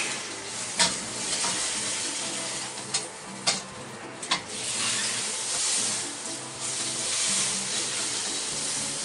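Pork steaks sizzling as they sear in fat in a hot wok, a steady frying hiss. There are a few sharp clicks in the middle, and the sizzle dips for about a second past the middle before swelling again.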